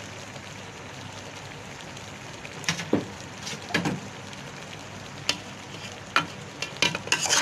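Metal spoon scooping parboiled rice in a steel cooking pot, scraping and clinking against the pot several times from about three seconds in, over a steady low sizzle from the pot on the heat.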